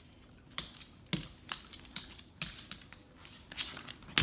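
Irregular sharp clicks and taps of a Norwegian Elkhound's claws on a hard floor as she paws at a rope toy stuck in her mouth. There are about a dozen uneven strikes, and the loudest comes at the very end.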